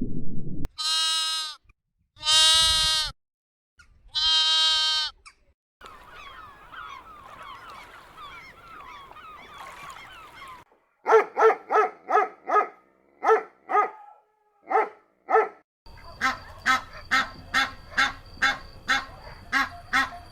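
A string of different animal calls edited back to back. Three long bleating calls come first, then a flock's busy chatter, then runs of short, clipped calls repeated about three times a second.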